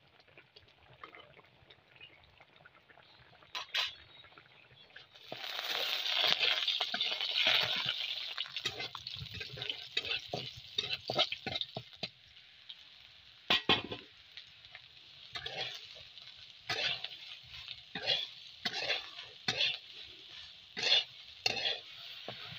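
Food frying in hot oil in an iron wok, the sizzle starting abruptly about five seconds in, with a metal spatula scraping and knocking against the pan in repeated stirring strokes.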